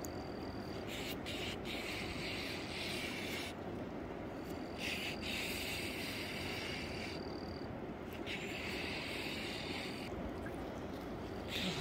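Steady outdoor wind and river noise, with a thin high tone that comes and goes.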